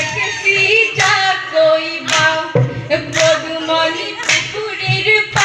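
Women singing an Assamese Jeng Bihu song, accompanied only by sharp claps that keep time about once a second.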